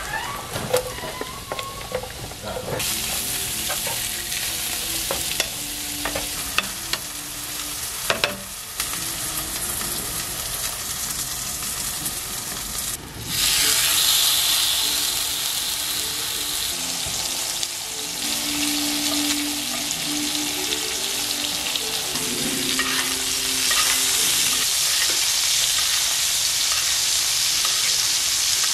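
Food frying in a pan: sliced mushrooms sizzling while being stirred with a wooden spatula, with light scrapes and clicks. About thirteen seconds in, a steak is laid into a hot cast iron skillet and the sizzle jumps louder and keeps going steadily.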